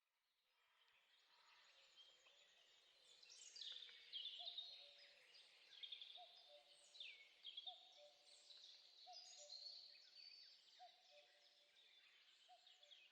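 Faint birdsong from several birds: high chirps and quick downward-sweeping notes, with a short lower note repeated over and over from about five seconds in. It fades in from silence at the start.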